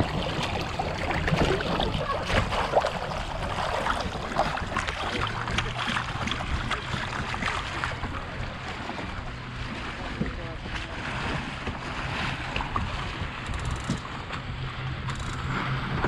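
Water rushing and splashing along the wooden hull of a sailing boat under way, with wind buffeting the microphone. A low steady hum comes in about a third of the way through.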